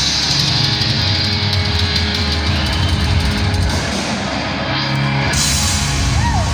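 Heavy metal band playing live at full volume, with distorted electric guitars and a drum kit, in the closing part of a song.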